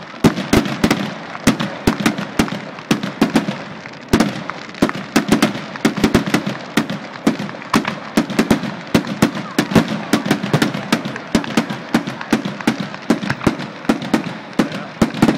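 Fireworks finale barrage heard from nearly beneath the shells: a continuous rapid volley of loud bangs and crackling reports, several per second without a break.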